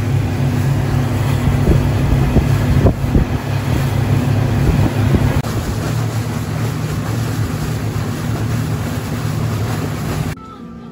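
Speedboat running at speed: a steady low engine hum under the rush of wake spray and wind on the microphone. It cuts off about ten seconds in to much quieter background.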